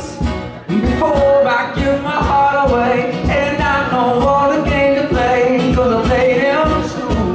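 Live acoustic music: an acoustic guitar strummed in a steady rhythm, about two strokes a second, under a held, stepping melody voiced into the microphone through cupped hands.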